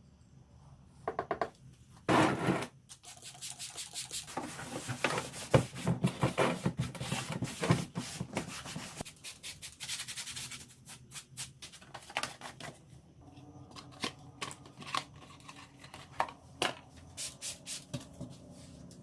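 Drained used engine oil poured through a funnel into an empty oil container: a dense, uneven stream sound from about two seconds in to about ten seconds. It is followed by scattered clicks and knocks as the container and funnel are handled.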